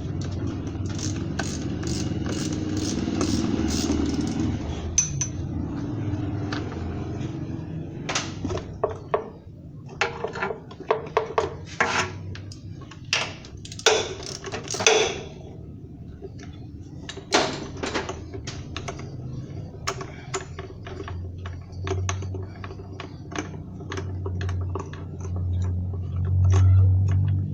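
Metal hand tools clinking, tapping and knocking against engine parts during timing-belt work, in irregular runs of sharp clicks over a steady low hum.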